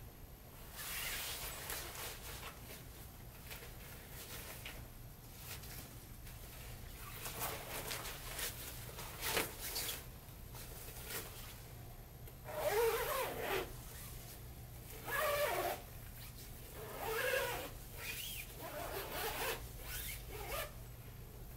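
Zipper on a fabric reflector's slipcover being run along its edge in several uneven strokes, the louder ones in the second half, with the nylon fabric rustling as it is pulled on and off the disc.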